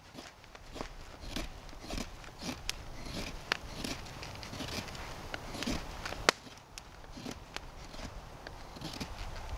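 Footsteps on the forest floor, an uneven pace of roughly one to two steps a second, with two sharp snaps, one about three and a half seconds in and a louder one just past six seconds.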